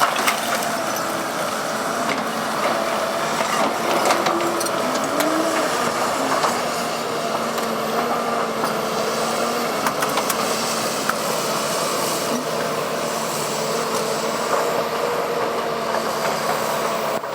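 Caterpillar 319D hydraulic excavator running steadily, with a few sharp knocks through it.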